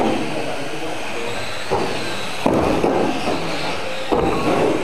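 Electric radio-controlled Mini cars running on a carpet track: a steady mix of motor and tyre noise, with three sudden louder swells, about two seconds in, half a second later, and again near the end.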